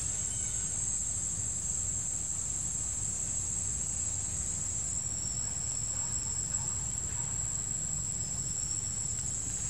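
Insects trilling in a steady, high-pitched drone, with a low rumble underneath.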